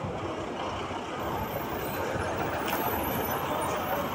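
Buses running at a bus stand, a steady rumble of engines and traffic noise with no single event standing out.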